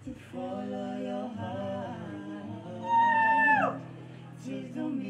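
A woman singing over a strummed acoustic guitar in an acoustic cover song. About three seconds in she holds a loud, high note, then slides down off it.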